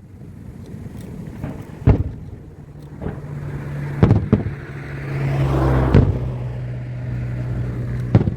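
Fireworks shells bursting: four sharp booms about two seconds apart. From about two and a half seconds in, a steady low hum runs underneath.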